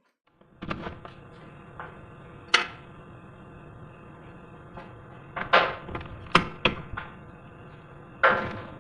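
Sharp knocks, about six at irregular intervals, over a steady hum that sets in about half a second in.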